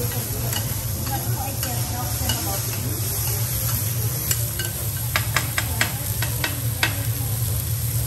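Food sizzling on a steel teppanyaki griddle while two metal spatulas turn and push the pieces, over a steady low hum. About five seconds in comes a quick run of sharp metal clacks from the spatulas.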